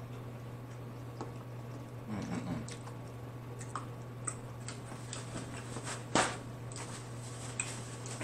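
Close-miked chewing: scattered wet mouth clicks and smacks, a dozen or so spread irregularly through the few seconds, over a steady low hum.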